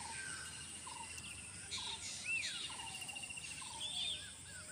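Wild birds calling over and over in short arching chirps, over a steady high insect buzz.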